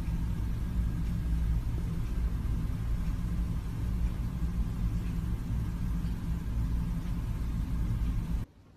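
Steady low mechanical hum or rumble that cuts off suddenly near the end.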